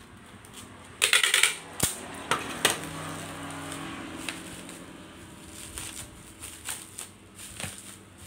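Packing tape pulled off a handheld tape dispenser in one brief loud rip about a second in, followed by a few sharp clicks as the tape is cut and pressed down. Then bubble wrap crinkling and rustling as it is handled.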